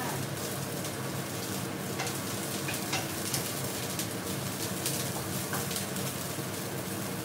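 Broccoli sizzling in hot oil in a frying pan as it is stir-fried with two wooden spatulas, with a few light knocks of the spatulas against the pan.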